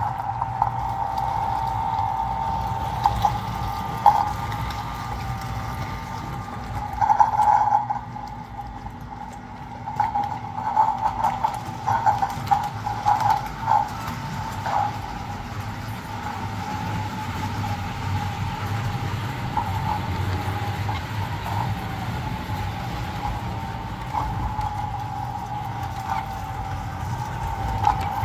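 American Flyer S gauge EP-5 model electric locomotive running with its passenger cars: a steady motor whine over a low rumble, with clicking and clattering of the wheels on the track. The sound is loudest in a run of clicks in the middle, then settles back to the steady whine.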